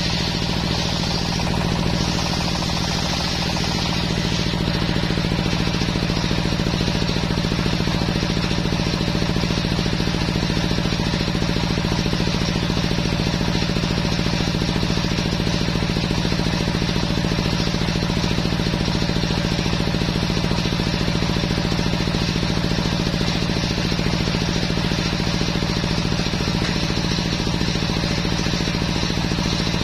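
Large belt-driven circular table saw and its drive engine running steadily. For the first few seconds the blade finishes a cut through a teak board with a higher hissing rasp, then it spins freely without load.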